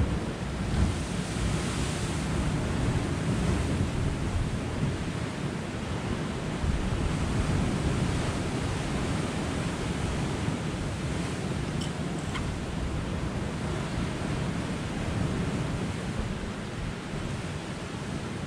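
Sea surf washing against a rocky shore in uneven swells, with wind rumbling on the microphone.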